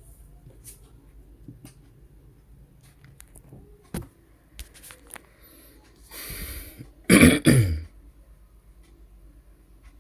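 A person coughing and clearing their throat, a harsh double burst about seven seconds in, just after a sharp intake of breath. A few small clicks and taps come before it.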